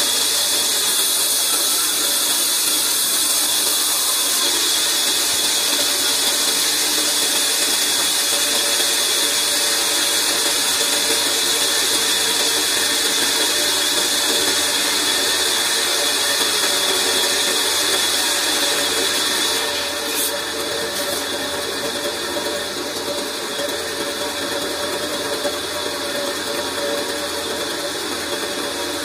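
Large band saw running steadily, a constant machine hum under a bright high hiss; the sound drops a little in level about two-thirds of the way through.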